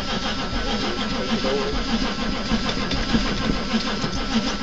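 Starter cranking a 1983 Chevy 6.2 V8 diesel on a cold start with the glow plugs not used, the engine turning over in an even pulsing rhythm without catching.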